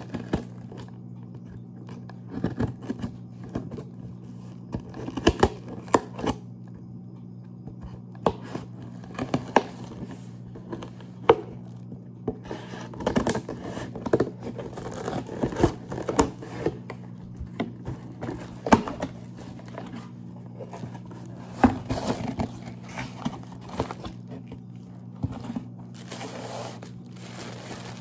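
Cardboard shipping box being cut and torn open: irregular scrapes, rips and taps at the packing tape and flaps, then plastic packaging crinkling near the end.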